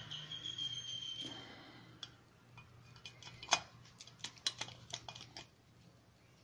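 Scattered light clicks and taps of a golf club head and its plastic ferrule being handled, over a low steady hum. A faint high squeak sounds in the first second or so.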